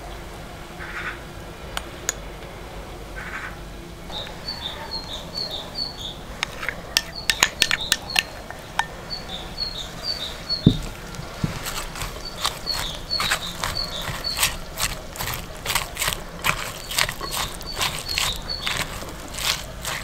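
Shredded red cabbage and onion being mixed with mayonnaise in a glass bowl: crisp crunching and clicks of the utensil, busiest in the second half, with one dull thump about ten seconds in. A bird repeats a short phrase of a few high chirps in the background.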